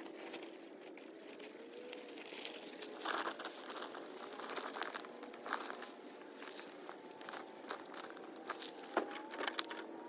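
Fabric bag rustling and crinkling as it is handled and packed, with scattered small clicks and crunches.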